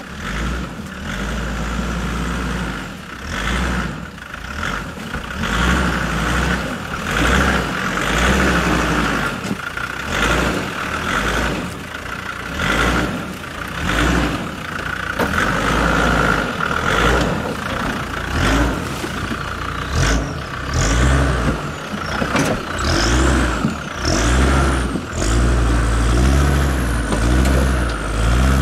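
Land Rover Discovery Td5's five-cylinder turbodiesel engine working under load, revving up and down in repeated surges as the truck crawls over rough ground.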